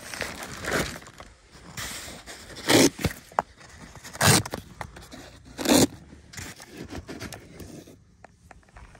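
Scraping and crunching on snow and ice, with three louder short crunches about a second and a half apart.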